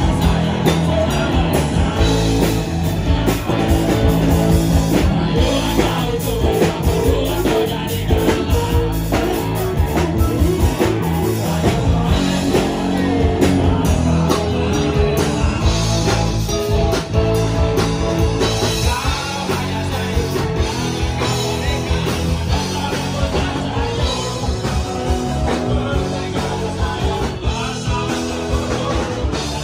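Live band music amplified over loudspeakers: electric guitar and drums with a voice singing over them.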